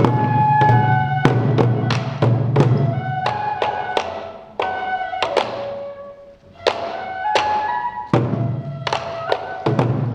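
Sansa odori festival music: taiko drums struck in a fast irregular rhythm under a bamboo flute playing held notes, with a brief lull about six seconds in.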